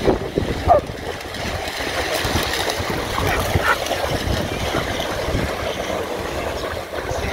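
Small waves washing onto a sandy lakeshore, with wind rumbling on the microphone.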